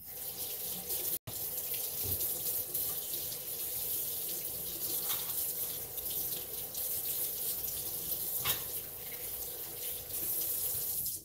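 Fish and vegetables frying in vegetable oil in a Dutch pot on medium-high heat: a steady sizzle with fine crackling, which cuts out for an instant about a second in.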